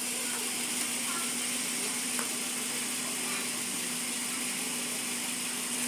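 Steady hum of an engine idling, with a couple of light metallic clicks from a wrench being worked on the front steering tie rod during a manual wheel alignment.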